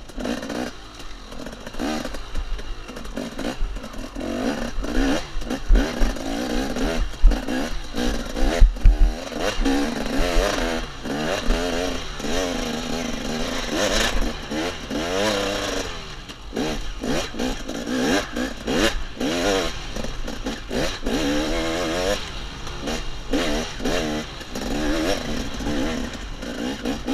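KTM 250 XC two-stroke dirt bike engine revving up and down constantly under hard riding, with clatter and knocks from the bike pounding over a rough woods trail; a run of hard thumps comes about a quarter of the way in.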